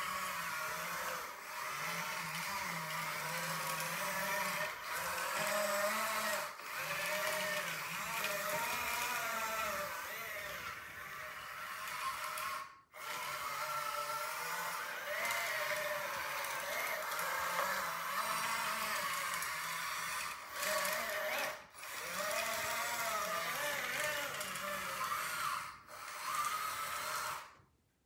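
LXYRC 1/14-scale metal hydraulic tracked skid steer loader running: the whine of its electric track motors and brushless-driven hydraulic pump, the pitch rising and falling as it is driven and worked. It breaks off briefly a few times and stops near the end.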